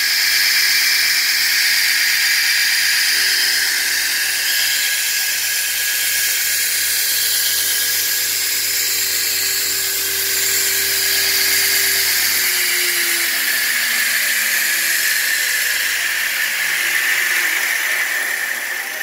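Shop-built 2x72 belt grinder running with no workpiece: the hum of its 1.5 hp three-phase motor, driven by a variable frequency drive, under the high hiss and whine of the 2-inch belt running over its wheels. The motor's hum drops a little in pitch about two-thirds of the way through, and the sound eases off near the end.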